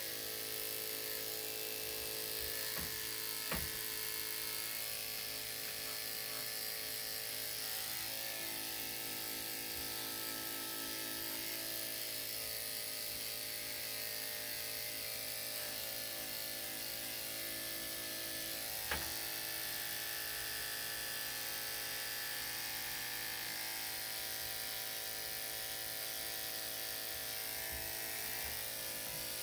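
Electric dog clippers fitted with a #7 blade running steadily, a constant motor hum, as they cut through a dog's coat. Two short sharp clicks stand out, about three and a half seconds in and again near nineteen seconds.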